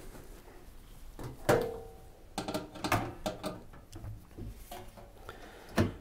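Scattered knocks and clicks of a washing machine's sheet-metal back panel being unscrewed and handled off the cabinet. One knock about a second and a half in leaves a brief ringing tone, and a louder knock comes near the end.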